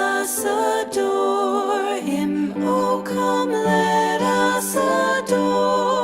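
A Christmas song with singing voices, changing note every fraction of a second over little or no instrumental backing.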